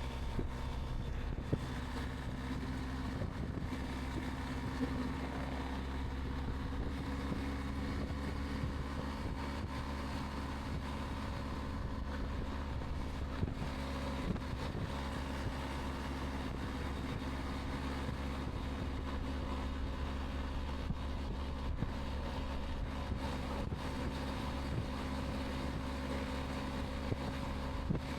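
Wind noise at highway speed, about 65 mph, heard at the rider's ear inside a Sedici Sistema II modular helmet with the chin bar open, over the steady drone of a BMW R 1250 GS's boxer-twin engine on its stock exhaust.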